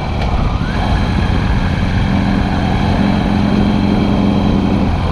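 Harley-Davidson Sportster's air-cooled V-twin running under way, with heavy wind rush on the microphone. A steady engine tone comes in about two seconds in and drops away just before the end.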